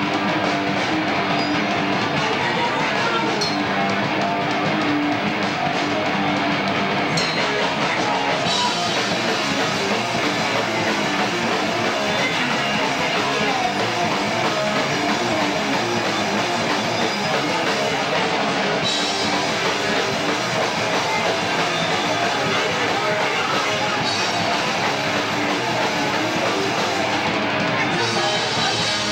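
A live rock band playing loud, with electric guitars and a drum kit with cymbals going together in a dense, heavy wall of sound.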